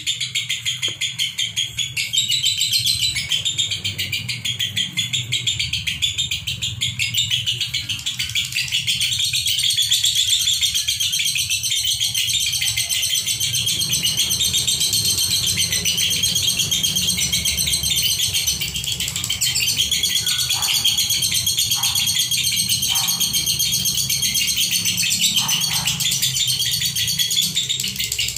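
Caged lovebirds, Fischer's and masked, chattering in a fast, high-pitched, unbroken stream of chirps without any pause: the nonstop 'konslet' song of lovebirds in full voice.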